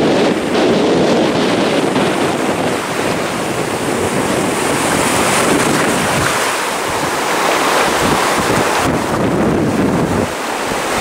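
Loud ocean surf breaking and washing through the shallows close around the microphone, with wind buffeting the microphone.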